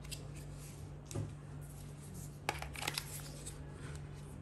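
Small plastic clicks and rubbing from a pocket mobile Wi-Fi hotspot being handled as a nano SIM card is pushed into its slot: a soft knock about a second in, then a quick cluster of sharp clicks near the three-second mark.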